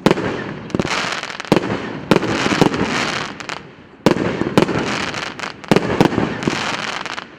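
P8595 'Borodino' multi-shot firework going off: a quick series of sharp bangs, roughly one every half second to second, each followed by a dense rush of noise. There is a short lull just before the middle, then the shots resume.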